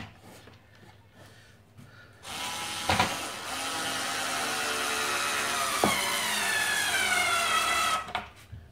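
Skil 360 Quick Select 4-volt cordless screwdriver driving a screw. Its motor starts about two seconds in with a steady whine that sinks slowly in pitch, with a couple of sharp clicks along the way, and stops about two-thirds of a second before the end.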